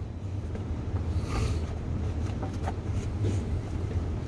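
Steady low rumble of wind on the microphone, with a soft rushing sound about a second in and a few faint clicks a little later.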